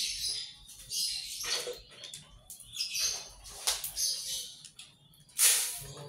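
Birds chirping in short, irregular high bursts, with dry seed mix rustling as it is scooped by hand from a plastic basin. The loudest burst comes a little over five seconds in.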